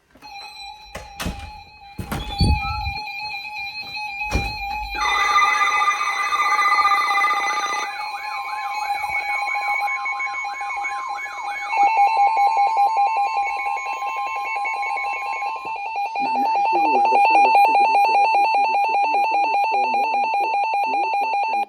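Emergency alert warning tones for a severe thunderstorm warning, several overlapping. Steady tones with a few sharp clicks come first, then a warbling siren-like tone and a long steady tone, and rapid beeping from about twelve seconds in.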